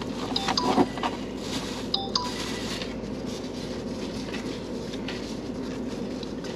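Takeout food containers being handled and opened: a few clicks and short squeaks in the first two seconds or so, over a steady background hum.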